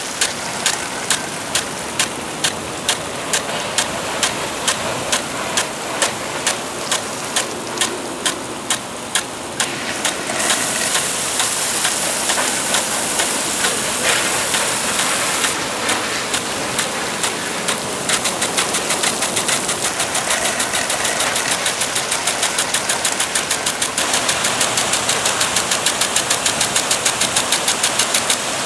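Impact lawn sprinkler ticking in a steady rhythm as its arm strikes the water jet, over the hiss of spray. The ticks come about two a second at first, the spray hiss grows brighter for a few seconds in the middle, and the ticking is quicker and denser in the last part.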